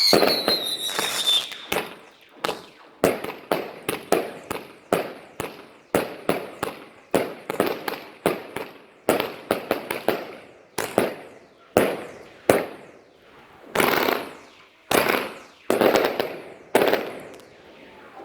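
Fireworks going off: a whistling firework's falling whistle at the start, then a long run of sharp bangs, about one or two a second, each trailing off.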